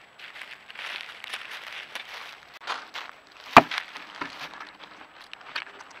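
Dry leaf litter crackling and rustling under something moving unseen, with one loud sharp snap, like a twig breaking, about three and a half seconds in.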